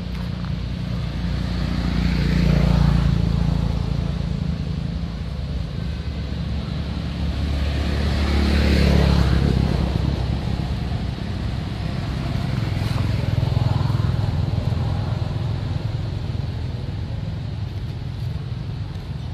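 Motor vehicles passing one after another, each swelling and then fading away over a steady low rumble. The loudest passes come about three and nine seconds in, and a weaker one comes around fourteen seconds.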